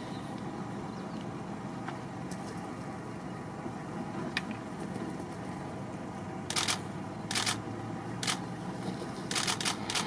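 Vultures squabbling and flapping at a carcass: several short, harsh rustling bursts about a second apart in the second half, over a steady low hum.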